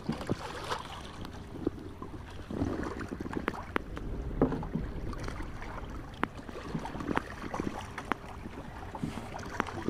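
Water lapping and splashing against the hull of a small boat, with scattered light knocks and clicks, and a low rumble about four seconds in.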